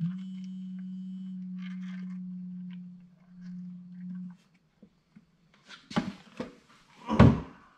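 Motor oil pouring from a plastic quart jug into a funnel on a small lawnmower engine, with a steady low hum through the pour that dips briefly near the middle. Then a few sharp knocks and clunks, the loudest near the end, as the jug is taken away.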